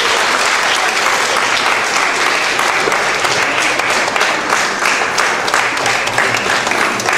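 Audience applauding steadily: dense, continuous clapping from many hands.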